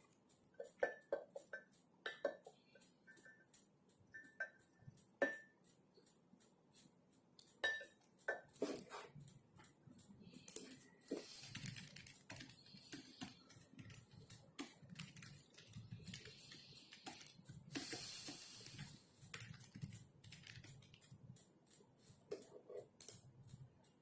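A series of light clinks and taps of tableware, several with a short ringing tone, followed by about ten seconds of rustling with soft low knocks.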